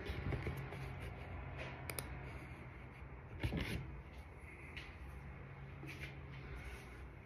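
Light rustles and knocks of a person moving close to the microphone, with one louder knock about three and a half seconds in, over a steady low hum.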